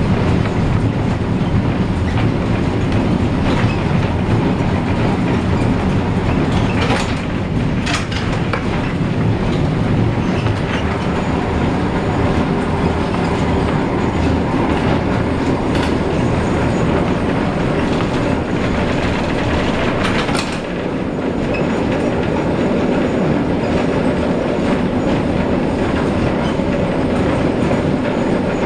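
Memphis streetcar #553 running on its rails, heard from inside its wooden cabin: a steady rumble of wheels and motors, with a few sharper clacks about seven, eight and twenty seconds in.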